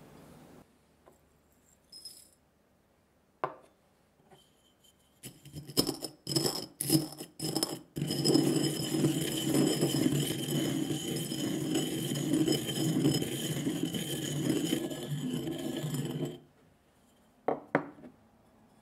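Dry tea leaves being ground in a ceramic suribachi mortar with a wooden pestle: a few separate strokes, then a steady grinding scrape for about eight seconds that stops suddenly, followed by two sharp knocks near the end.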